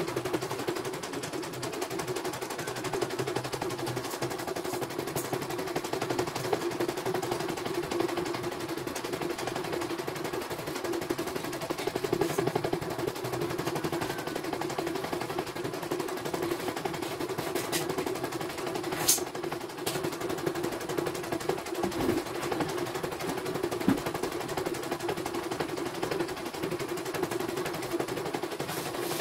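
CNY portable embroidery machine stitching a design, a fast steady needle clatter, on its test run after servicing. A few sharp clicks stand out, the loudest about two-thirds of the way through.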